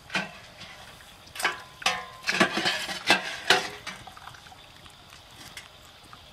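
A wire-mesh boil basket being handled over a heap of boiled crawfish: a knock at the start, then about two seconds of metallic clattering and rattling of the basket against the shells and the food.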